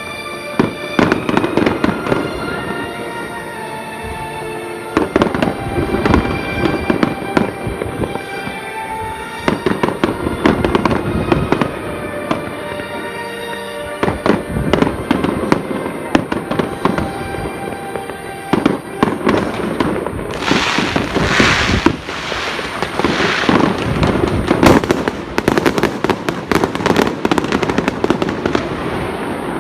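Fireworks display: repeated sharp bangs of bursting aerial shells, with dense crackling bursts about twenty seconds in and again near the end, over music with long held notes.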